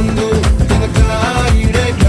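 Background music with a steady danceable beat and a melody that may include singing.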